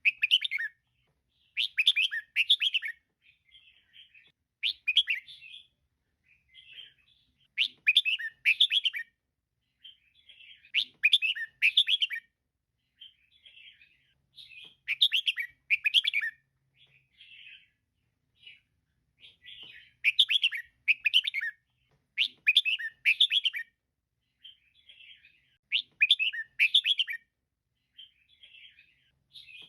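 Female red-whiskered bulbul calling: short phrases of quick chirping notes, louder phrases every two to three seconds with softer ones between.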